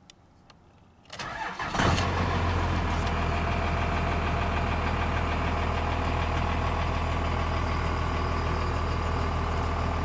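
Dodge Ram's Cummins turbo-diesel inline-six, heard from the cab: after a couple of faint clicks it cranks briefly about a second in, catches, and settles into a steady diesel idle.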